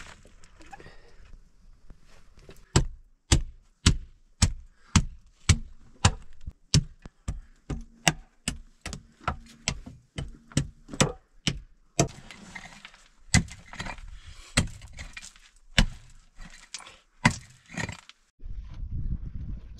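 A short-handled pick chopping into stony earth, with sharp strikes about twice a second and loose soil and stones scraping between some of them.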